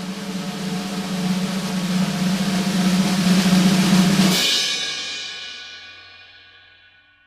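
Snare drum roll swelling steadily louder, cut off about four seconds in by a cymbal crash that rings and fades away.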